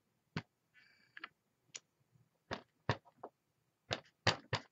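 Rubber stamp pressed repeatedly onto paper on a tabletop: about nine sharp taps, irregularly spaced, some coming in quick runs of two or three.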